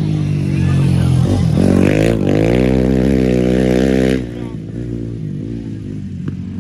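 Motocross dirt bike engines revving hard, the pitch rising and falling through the revs. The sound is loud for about four seconds, then drops suddenly to a quieter, more distant engine sound.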